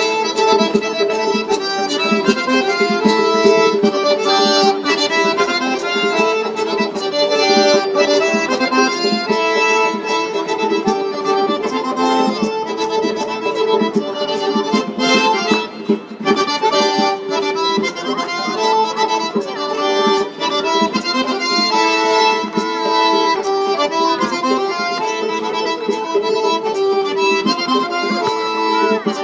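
Traditional Circassian dance music led by an accordion, playing a quick tune with many fast note changes over a steady rhythm.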